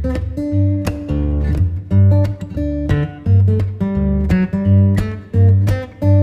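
Background music: plucked acoustic guitar with a steady beat of strummed and picked notes.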